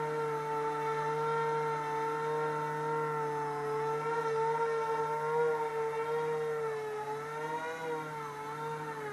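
Twin brushless motors spinning three-blade propellers on a homemade tiltrotor RC aircraft in hover: a steady buzzing whine whose pitch wavers and dips slightly about seven to eight seconds in.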